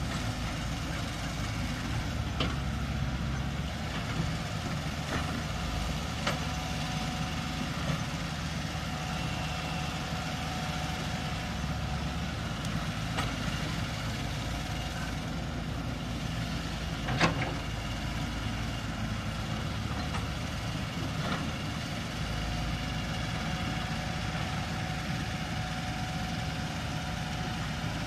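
Excavator diesel engine running steadily, with a few short sharp knocks scattered through, the loudest about seventeen seconds in.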